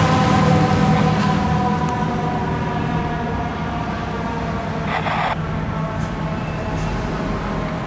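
1996 E-One Cyclone TC fire engine's diesel engine pulling away, its sound slowly growing fainter as it moves off. The siren tone dies away over the first second or two, and there is a short hiss about five seconds in.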